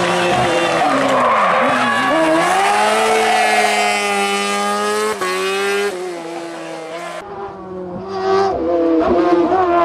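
Hill-climb race car engines at high revs, the pitch dipping and climbing again and again with gear changes and lifts off the throttle, over several short cuts. Tyres skid noisily in the first couple of seconds.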